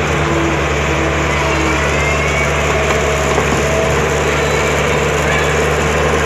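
Diesel engine of heavy earthmoving machinery running steadily at an even speed, a constant low drone.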